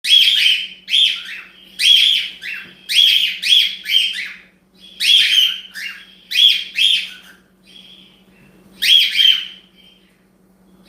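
Cockatiel calling: a dozen or so loud, shrill chirps in quick runs, falling quiet about nine and a half seconds in.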